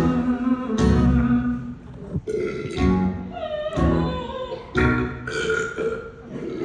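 A series of comic burps, one after another, over stage-musical accompaniment.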